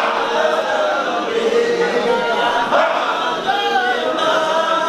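A group of men chanting together in a devotional circle chant, several voices holding and sliding between long notes.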